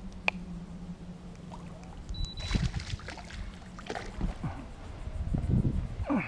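Water splashing and sloshing in uneven bursts as a small hooked fish thrashes at the surface beside the boat, with a low steady hum in the first two seconds.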